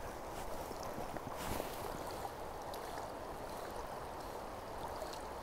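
Steady rushing of a river running high after rain, with a few faint clicks.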